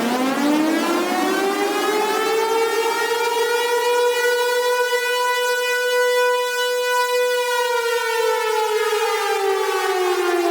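Civil defence warning siren sounding one long wail: its pitch climbs from a low growl over about five seconds, holds a steady high tone, then slowly falls again.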